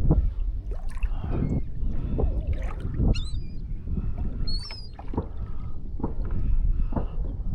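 Water slapping against a kayak hull in wind, with short knocks about once a second. A few brief high bird calls come in, around the middle.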